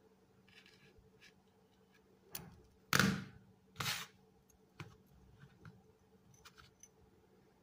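Scattered light clicks and a few sharper knocks of steel orthodontic wire, pliers and a stone dental model being handled on a steel bench, the loudest knock about three seconds in.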